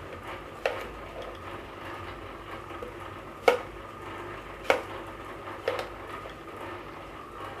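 Kitchen items being handled: a handful of separate sharp knocks, roughly a second or more apart, over a low steady hum.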